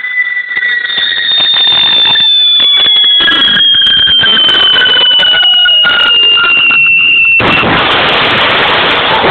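Garden firework whistling loudly with scattered crackles, one long high whistle slowly falling in pitch for about seven seconds. Near the end the whistle stops and a dense hissing crackle takes over.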